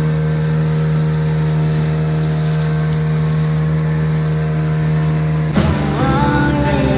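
Motorboat engine running steadily. About five and a half seconds in, music starts over it.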